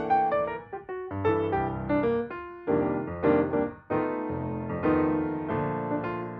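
Background piano music: a melody of single struck notes and chords, each note dying away after it sounds.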